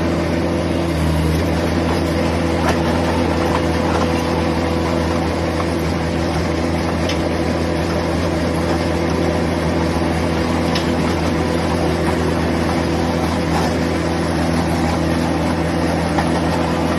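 Skid steer loader's diesel engine running steadily as it drives a hydraulic trencher attachment, with a few faint clicks.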